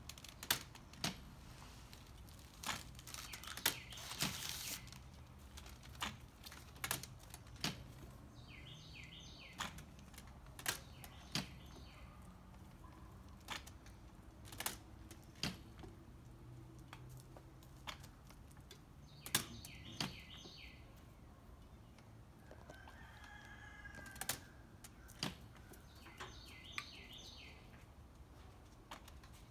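Irregular wooden knocks and clicks, one or two every second or so, from the levers, weights and strings of a homemade plywood lever wheel under test. A songbird repeats a short chirping phrase every several seconds, and a rooster crows once about 24 seconds in.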